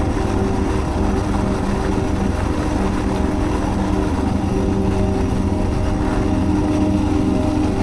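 Suzuki DR650's single-cylinder four-stroke engine running steadily as the motorcycle is ridden at an even pace, over a low rumble.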